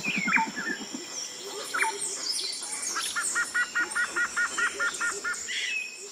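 Several woodland birds singing: repeated falling whistles and chirps, with a fast run of about ten paired notes starting about three seconds in, over thin high steady tones. A low rapid pulsing sounds in the first second.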